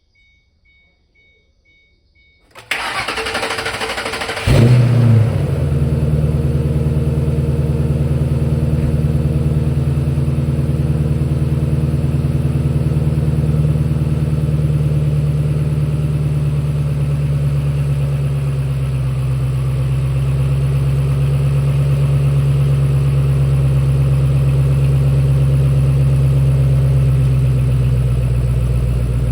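Ford Mustang's engine cranked by the starter motor for about two seconds, catching with a brief rev and then settling into a steady idle, the car starting on its newly fitted battery.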